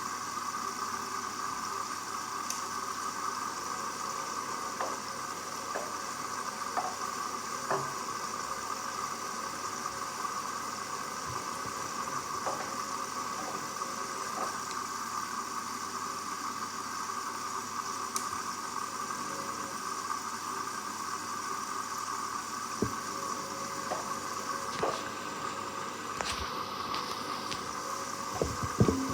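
Hoover Dynamic Next 7 kg front-loading washing machine mid-wash on a rapid 30° cycle: the drum turns and the water sloshes in a steady hum, with scattered light clicks and knocks.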